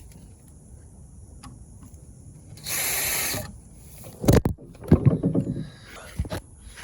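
Power drill running for about a second, followed by a run of sharp knocks and rattles of tools and wood being handled.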